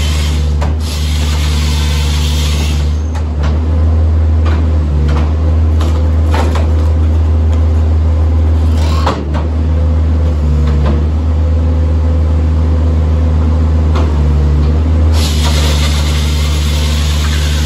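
Compact track loader's diesel engine running steadily under load, driving the hydraulics of a Halverson HWP 120 firewood processor. A hissing rush sounds over it for the first few seconds and again near the end, with a single knock about nine seconds in.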